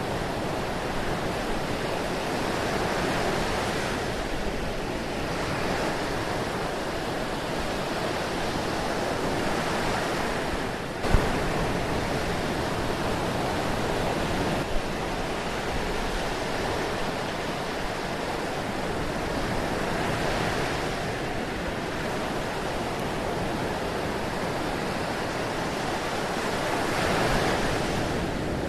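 Ocean surf: a continuous rush of waves that swells and eases every few seconds. A single sharp click about eleven seconds in is the loudest moment.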